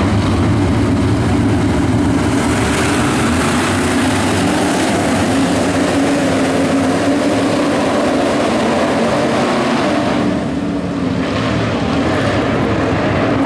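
A field of IMCA modified race cars' V8 engines running hard at racing speed, many engines together in one loud, steady drone. The sound dips briefly about ten seconds in and then swells again as the pack comes back around.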